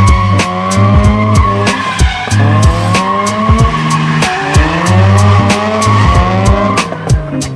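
Mazda RX-8's rotary engine revving hard again and again, with tyres squealing as the car is driven sideways in a drift. Background music with a steady beat plays over it.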